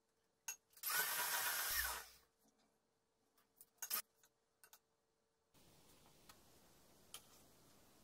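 Electric mixer runs for about a second, whipping butter for buttercream, followed by a few short clicks.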